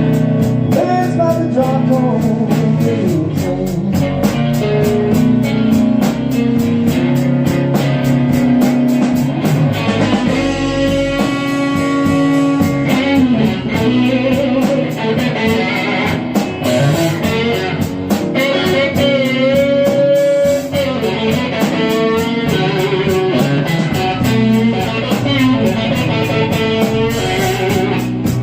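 Slow blues in G played on electric guitar: an instrumental passage of bent, sliding lead notes over a steady beat.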